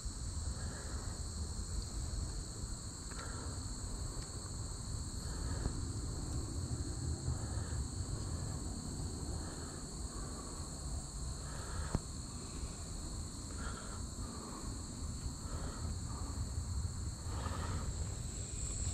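Steady, high-pitched chorus of crickets or other late-summer insects, over a low rumble, with a single sharp click about twelve seconds in.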